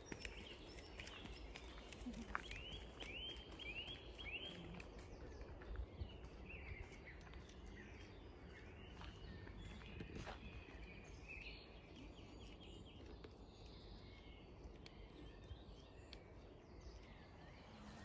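Faint birdsong in woodland: a quick run of about five arched chirps a couple of seconds in, then scattered calls, over a low steady rumble.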